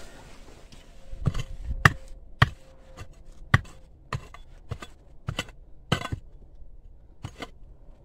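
Sharp knocks and clicks on stone, about nine at irregular intervals of half a second to a second: loose stone fill being dug and knocked out of a rock-built structure.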